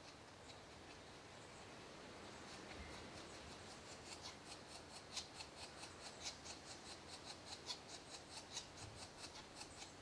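European green woodpecker at its nest hole: a faint, regular series of short high ticks, about four a second, building up over the first few seconds and stopping near the end.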